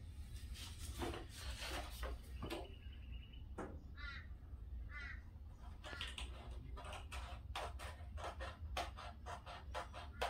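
A cardstock sheath pattern being cut out by hand: scattered cutting strokes at first, then a quick irregular run of cuts in the second half. Two short bird calls come in the background about four and five seconds in, over a steady low hum.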